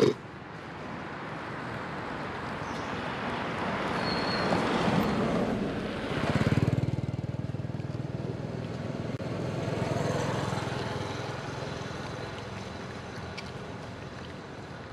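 Vehicles passing along the road one after another: tyre and engine noise swelling and fading, the loudest a pass with a low engine buzz just after six seconds, and another around ten seconds. A sharp click right at the start.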